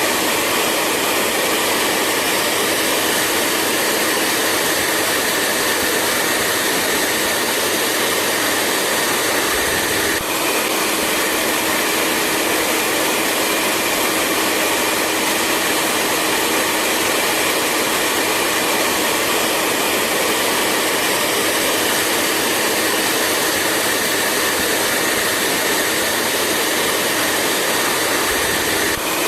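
Hair dryer running steadily: an even rushing blow with a steady hum and a fainter high whine in it. It dips briefly about ten seconds in and again near the end.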